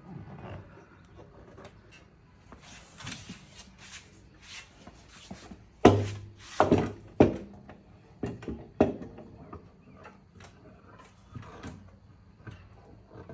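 Clamps being set and tightened across a freshly glued tabletop: a series of knocks and clacks of metal against wood, loudest in a cluster about six to nine seconds in.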